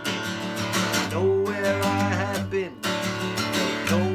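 Acoustic guitar strummed in a steady rhythm, with a man's singing voice over it.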